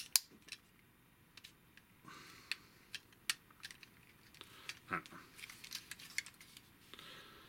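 Plastic parts of a Generations Toys Gravity Builder Mixmaster transforming robot figure being handled and pressed together: irregular small clicks and rubbing, with the sharpest click at the very start and another strong one about five seconds in.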